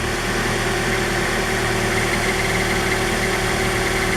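2009 Scion xD's 1.8-litre four-cylinder idling steadily with the clutch pedal released, the car carrying the chirping noise under test. A faint higher-pitched sound creeps in about halfway through over the steady idle.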